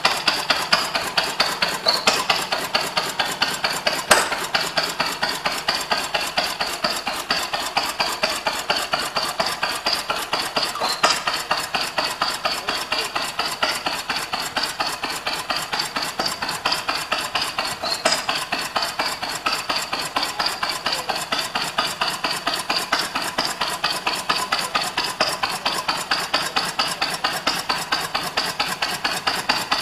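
Bruneau 12 hp stationary engine running, a rapid, even clatter of metallic knocks with now and then a louder one.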